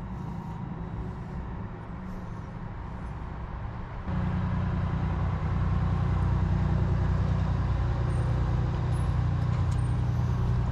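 A steady low rumble that gets louder about four seconds in and then holds steady.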